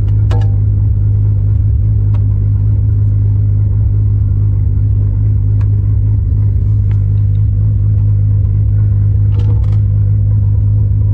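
Turbocharged VW VR6 engine idling steadily, with a few faint light clicks over it.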